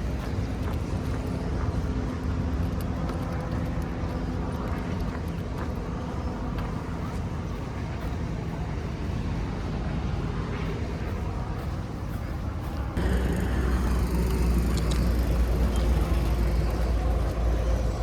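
Steady road traffic noise heard outdoors. About thirteen seconds in, a deep low rumble comes in suddenly and the sound gets louder.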